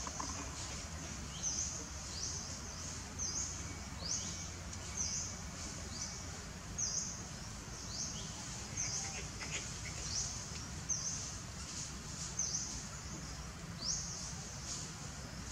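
A bird repeating a short, high, upward-sweeping call about once a second, over steady low background noise.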